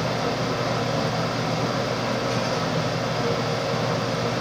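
Steady whir of a ventilation fan running without a break.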